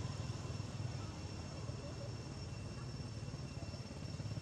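A nearby engine, such as a motorbike's, idling: a steady low drone with a fast, even throb.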